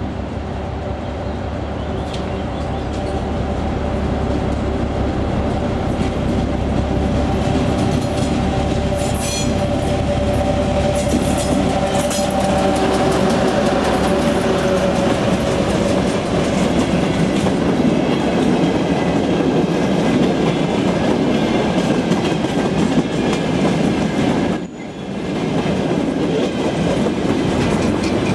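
ChME3 diesel shunting locomotive, with its six-cylinder diesel engine running as it pulls a freight train past, then open freight wagons rolling by with the wheels clacking over the rail joints. The engine's steady drone fades by the middle, leaving the rumble and rhythm of the wagons, with a brief break near the end.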